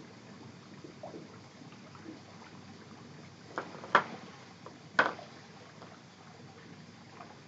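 A cat eating canned wet cat food makes small wet chewing and smacking sounds. Two sharp clicks come about four and five seconds in, a second apart.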